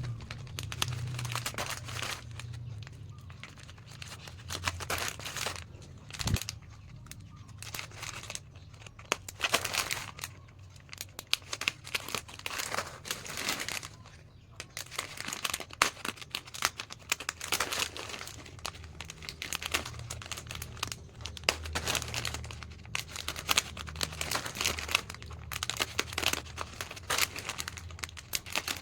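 Plastic snack packets crinkling and rustling as they are handled and cut apart, in irregular crackly bursts.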